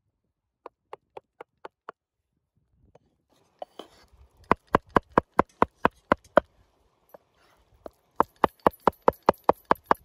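A knife chopping on a cutting board in quick even strokes, about four or five a second. A short faint run comes about a second in, then louder runs from about four and a half seconds and again from about eight seconds, with a pause between.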